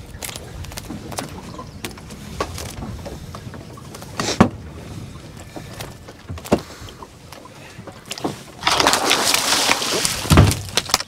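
Low water noise with scattered sharp knocks on a fibreglass boat. About nine seconds in comes loud splashing as a hooked dorado (mahi-mahi) is gaffed at the surface and thrashes.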